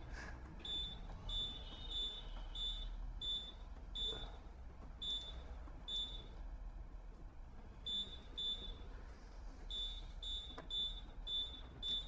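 IFB Senator SXC 8 kg front-load washing machine's control panel giving a short, high beep at each press of its option button, pressed over and over, with a pause of about a second and a half just past the middle. Each press steps the delay-start timer on by an hour.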